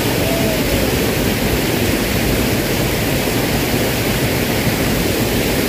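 Steady rush of a small irrigation ditch running in flood, fast muddy water churning down the channel.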